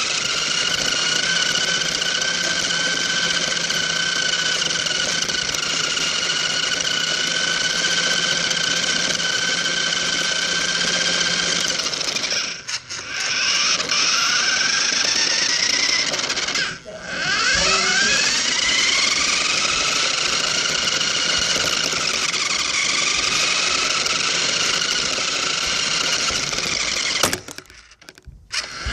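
Electric motor and gears of a radio-controlled toy car whining at speed, heard from a phone riding on the car. It stops briefly twice, about twelve and seventeen seconds in, each time spinning back up with a rising whine, and cuts out near the end.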